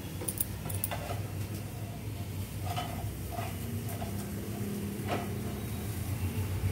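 Wooden spatula knocking and scraping against a frying pan as a slice of bread is turned and pressed while it toasts, a few light knocks spread through, over a steady low hum.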